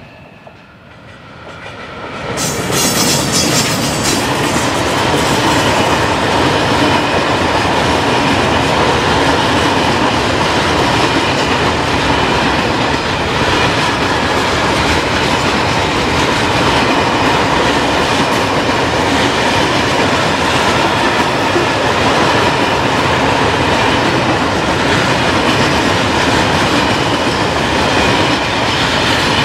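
A long freight train of sliding-wall covered wagons passing close by. Its wheels make a steady rumble and clatter on the rails that comes in suddenly about two seconds in and holds at an even level.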